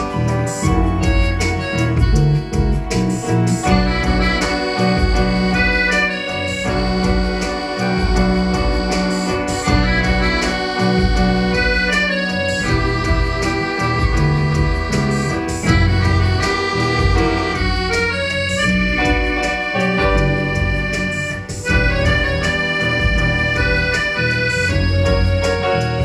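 Live instrumental music from a small ensemble: an accordion carrying the tune over electronic keyboard and electric bass guitar, playing throughout.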